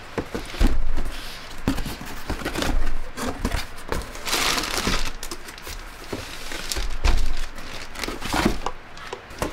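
Handling of a Panasonic blender's plastic jar and motor base: irregular knocks, clicks and rustling as the parts are picked up and set down.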